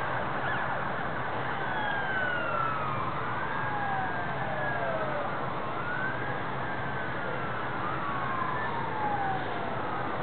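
An emergency vehicle siren wailing, its pitch sweeping up and down in slow, overlapping cycles about every two seconds, over a steady background hiss.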